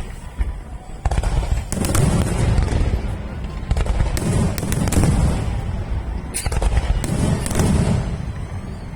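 Aerial firework shells bursting in rapid succession during a finale barrage: a continuous run of deep booms overlaid with many sharp cracks and crackles.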